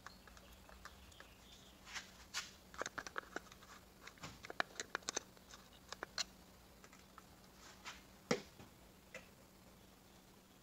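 Scattered light clicks and taps of small parts being handled as a threadlocker bottle is worked at a pin in the crankshaft damper hub, most of them bunched in the first half, with one sharper tap about eight seconds in.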